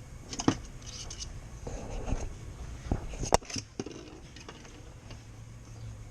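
Handling noise: two sharp metallic clanks, about half a second in and just past three seconds, with lighter rattling and clicks between them, over a low steady hum.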